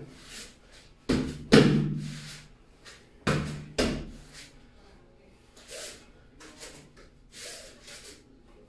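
Staff form with two pairs of loud, sudden hits, about a second in and again just past three seconds, each ringing briefly in the small room, followed by softer swishes of the staff and the performer's movement.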